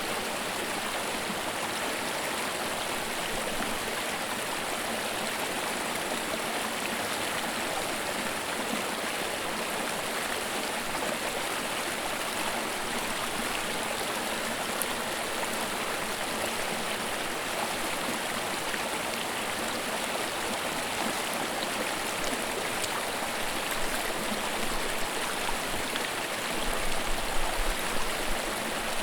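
Small creek babbling and rushing over rocks in a steady, even flow, recorded close in stereo. A few low bumps come through near the end.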